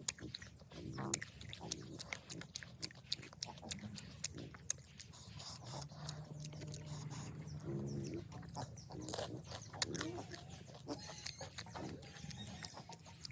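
A person eating pani puri: many small crunches and wet chewing and slurping sounds, with a few short mouth and breath noises between bites.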